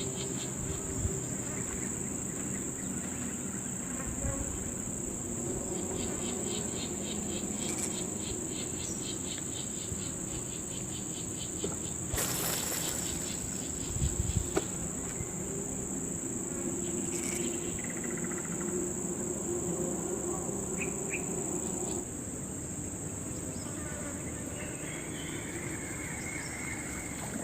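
Steady, high-pitched chorus of insects (crickets or cicadas) running without a break, with a faster pulsing chirp joining in from about six to ten seconds in. A low steady hum sits underneath, and there are a couple of brief clicks.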